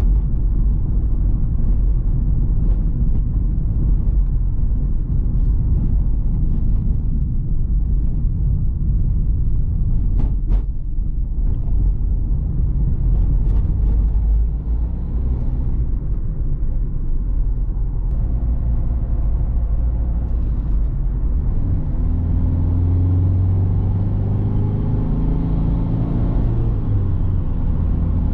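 Onboard sound of a Citroen C3 Picasso's 1.6 HDi four-cylinder diesel on a rough road: heavy, steady tyre and suspension rumble with scattered knocks and rattles. Over the last several seconds the diesel engine's note comes through and rises as the car accelerates.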